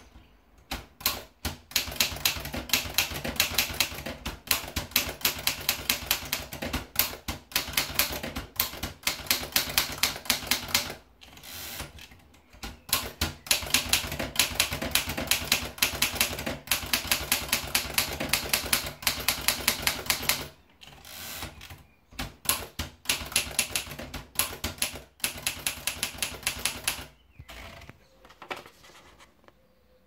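Imperial Good Companion portable manual typewriter being typed on: rapid keystrokes with the typebars striking the paper, in three runs with short breaks between them, and a few scattered clicks near the end.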